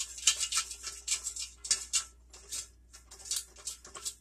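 Fried potatoes being turned over in an air fryer basket: a run of quick rustling, scraping strokes, with a short pause about three seconds in.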